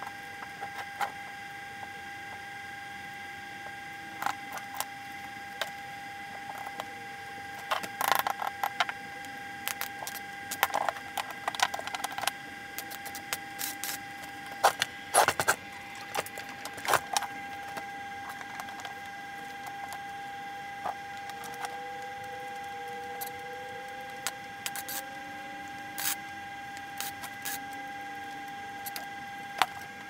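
Small metal parts clinking and knocking against each other and the workbench as they are handled, in scattered clusters of sharp clicks, over a steady high electrical hum.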